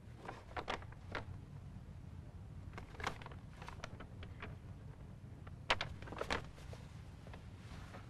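Soft clicks and rustles of a small doll in a cloth dress being handled, over a low steady hum. The loudest clicks come twice a little after six seconds.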